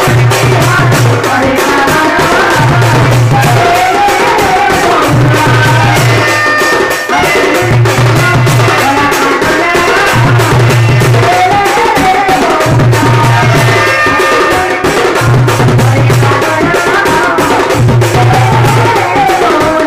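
Live Sambalpuri folk music: a woman singing through a microphone over a large barrel drum (dhol) and dense, fast percussion, with a low note recurring about every two seconds.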